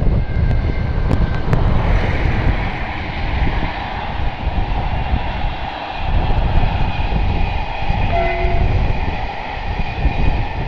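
Passenger coaches of a locomotive-hauled train rolling past on the track: a steady, loud rumble of wheels and running gear, with faint high squealing tones above it.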